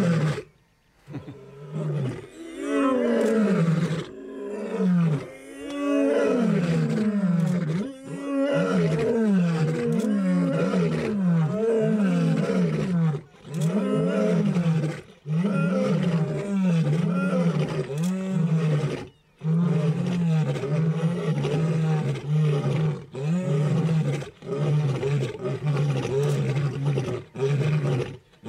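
Male lions roaring together: a long series of deep grunting calls, roughly one a second, each rising and falling in pitch, that become shorter and flatter toward the end.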